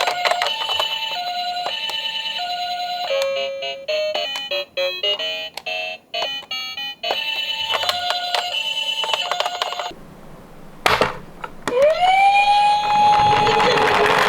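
Toy ambulance's electronic hi-lo siren, two tones alternating about once a second, in the Japanese ambulance 'pee-po' style. In the middle it gives way for a few seconds to a short electronic tune of changing notes, then the hi-lo pattern returns. Near the end there is a single knock, and then a wailing siren tone rises and holds.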